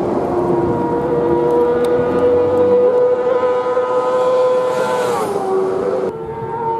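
Racing sidecar outfit's engine at high revs, a steady high note as it approaches, dropping sharply in pitch as it passes at speed about five seconds in. A little after that the sound cuts abruptly to another machine's engine note, steady at high revs as it approaches.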